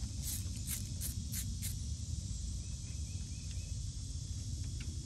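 Hand ratchet clicking in quick strokes as a 10 mm valve-cover bolt is loosened: about seven sharp clicks over the first two seconds, then steady outdoor background noise with a few faint chirps.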